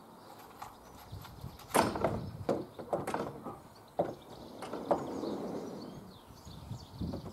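Hammer tapping on PVC trim boards at a conservatory roof edge: about five sharp knocks at uneven intervals.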